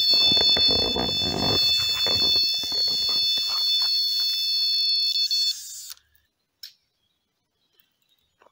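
Electronic carp bite alarm sounding a continuous high-pitched tone as line runs out over its roller: a fish has taken the bait. Rustling and knocks mix in over the first few seconds, and the alarm cuts off about five and a half seconds in.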